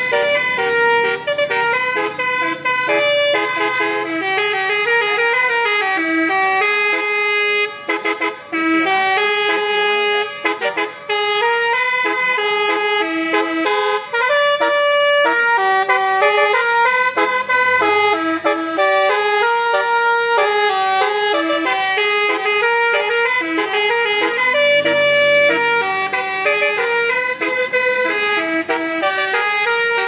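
Tour bus's telolet basuri musical horn playing a fast melody, one note stepping to the next several times a second without a pause.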